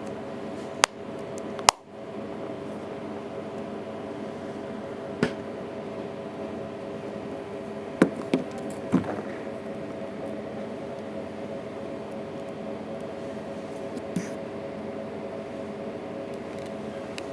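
A handful of short, sharp clicks and taps: two in the first two seconds, one a few seconds later, a quick group of three around the middle, and a faint one near the end. They are typical of small parts and tools being handled while working on a phone. Under them runs a steady electrical hum.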